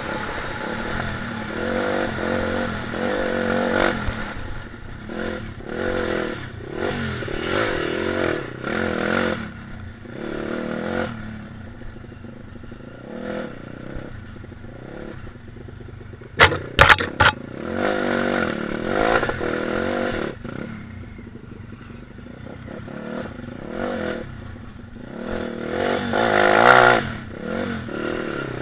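Stomp KZR 140cc four-stroke pit bike engine being ridden hard over rough dirt trail, revving up and dropping back every second or two as the throttle opens and closes. About two-thirds of the way through there is a quick run of sharp knocks, and the engine revs highest near the end.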